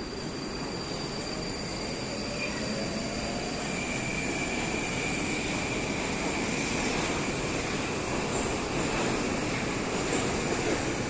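Moscow-2020 metro train (81-775/776/777) moving along the platform, its wheels rumbling on the rails and its traction motors whining with a tone that rises in pitch over the first few seconds as it gathers speed. The sound grows steadily louder.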